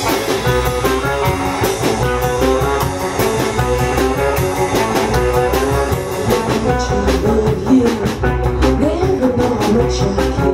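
Live band playing an instrumental intro: guitar over a drum kit keeping a steady beat.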